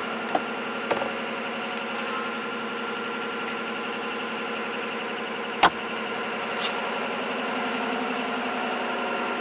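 Steady engine idling hum, with a few light clicks near the start and one sharp click about five and a half seconds in.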